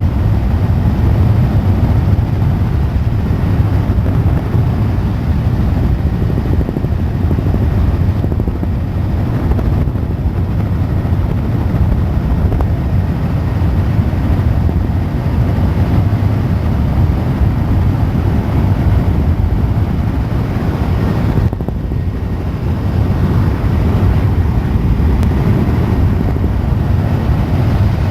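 Helicopter in flight: a loud, steady, deep drone of rotor and engine, dipping briefly about three-quarters of the way through.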